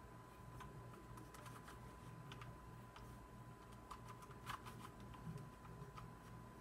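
3x3 Rubik's cube turned by hand: quick, irregular plastic clicks as the layers are twisted, faint, with the sharpest clicks about four and a half seconds in.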